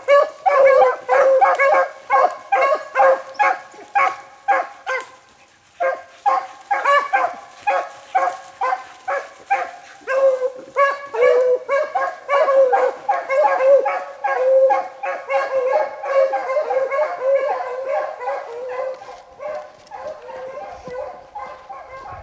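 A pack of hunting beagles baying on a rabbit's scent in rapid, overlapping barks at about three to four a second. The calls pause briefly about six seconds in, then fade near the end as the dogs move off.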